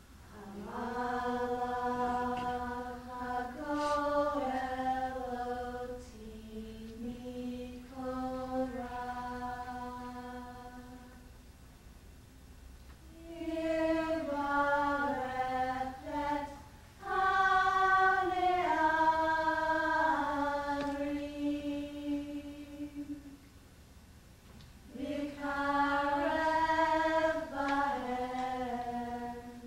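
Slow, wordless-sounding vocal chant: long held sung notes that step downward in pitch, in four phrases with short pauses between them.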